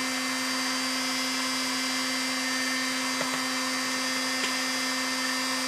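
A small electric motor running steadily: a constant hum with a high, even whine, and a couple of faint ticks about three and four and a half seconds in.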